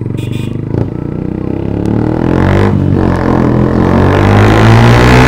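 Yamaha FZ's single-cylinder engine running through a loud aftermarket Akrapovič-replica exhaust while riding, getting louder from about two seconds in as the bike accelerates.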